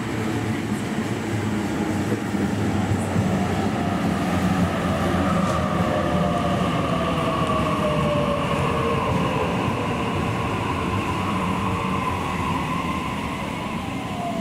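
Sydney Trains electric train slowing down, its motor whine falling steadily in pitch over a continuous rumble of wheels on the rails.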